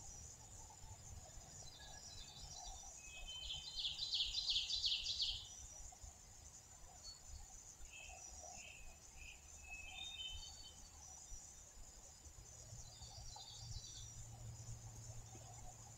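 Wild songbirds calling in spring woodland. One bird gives a loud, fast trill of rapidly repeated high notes about three to five seconds in, followed by scattered short chirps. A faint steady high-pitched hum lies underneath.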